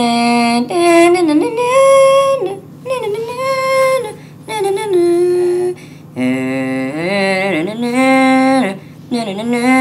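A person's voice singing a tune in long held notes that slide from one pitch to the next. It sounds sped up and higher in pitch because the recording has been fast-forwarded.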